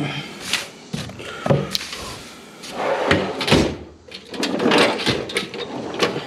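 Drawers of a Snap-on metal toolbox being slid open and shut, with loose tools and sockets clattering and clinking as someone rummages through them.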